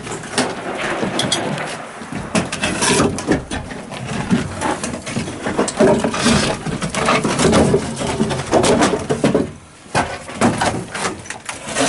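Footsteps and rattling gear of people moving along a bare concrete corridor: irregular sharp knocks and scuffs, with a brief lull just before ten seconds in.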